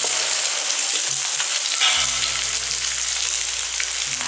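Scrambled egg, sausage slices and meatballs sizzling in a hot aluminium wok while a metal spatula stirs them, scraping and tapping against the pan. A low steady hum joins about halfway through.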